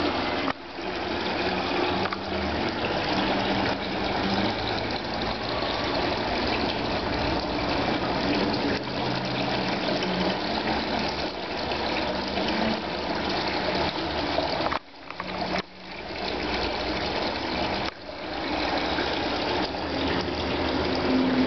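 Several thin streams of water pouring from the log-style spouts of a decorative fountain into its water-filled trough, a steady splashing and trickling. The sound breaks off briefly a few times in the second half.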